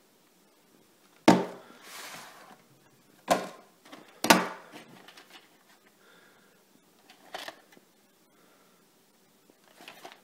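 A VHS cassette and its plastic clamshell case being handled. Three sharp plastic clacks come in the first five seconds as the case is opened and the tape taken out, followed by fainter taps and rustles as the cassette is turned over.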